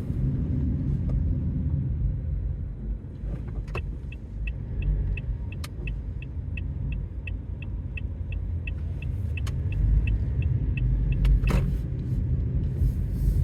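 Car running at low speed, heard from inside the cabin as a steady low rumble. For several seconds in the middle, a rapid run of short high-pitched electronic beeps sounds, about three a second.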